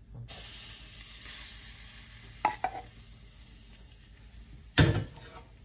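Hot lemon-and-ginger water poured from a saucepan into a mug: a steady splashing hiss that begins just after the start. A couple of light knocks come about two and a half seconds in, and one loud knock near the end.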